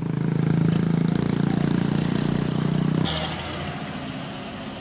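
A vehicle engine running close by, steady and loud, cutting off about three seconds in and leaving a quieter hiss.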